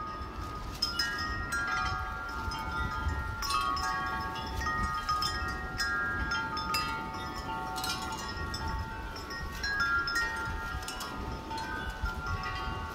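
Wind chimes ringing in gusty wind, many overlapping tones of different pitches struck over and over, over a low wind rumble.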